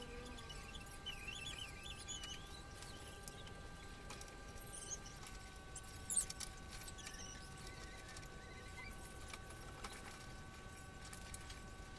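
Faint clicks and handling noises of hands pushing wire connectors onto a replacement thermostat inside a water dispenser, with one sharper click about six seconds in. A faint steady hum of several held tones runs underneath.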